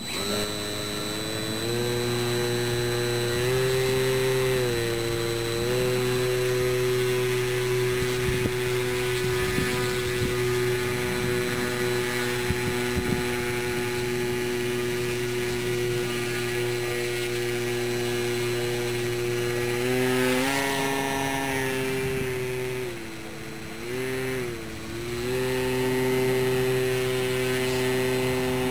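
Small RC plane's motor and propeller running in a prop hang, a steady whine that starts at once and rises and falls as the throttle is worked: it steps up about four seconds in, and near the end dips twice before climbing back.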